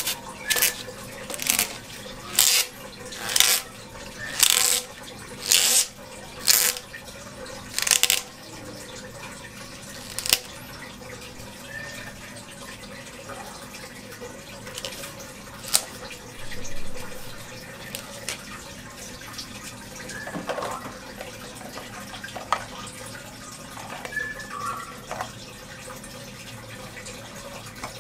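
Water trickling in an aquarium, with a run of about nine brisk, noisy strokes roughly a second apart in the first eight seconds, then scattered small clicks and knocks from handling pump parts.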